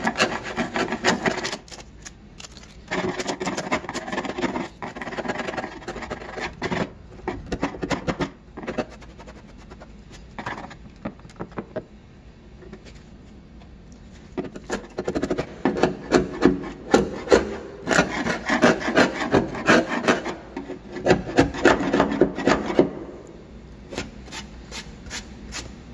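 Flathead screwdriver scraping flaking paint off a car's painted steel rear fender, in runs of quick scratchy strokes with a quieter stretch in the middle. The old paint is coming away in chips, every layer down to bare metal.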